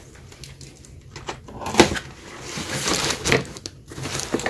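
A large cardboard parcel box being handled and opened: the cardboard rustles and scrapes, with scattered knocks and one sharp knock a little under two seconds in.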